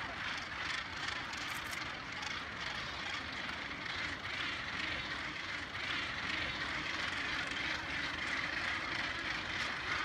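Steady din of a large northern gannet colony: many birds calling at once, blending into one continuous chorus.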